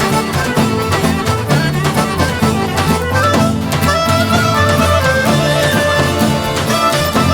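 Instrumental Albanian folk dance music from a folk ensemble: a fiddle-like melody over a steady beat.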